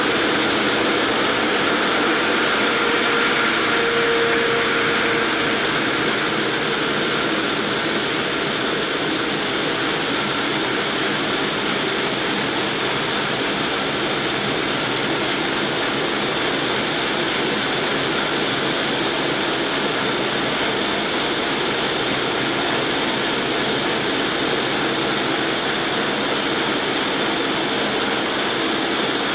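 Multi-blade granite block cutter running, its gang of large segmented circular saw blades cutting through a granite block. The noise is steady and even, with a few faint steady whining tones in it.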